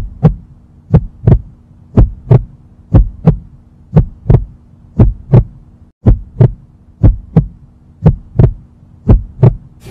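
Heartbeat sound effect: a double thump, lub-dub, about once a second, over a faint steady low hum.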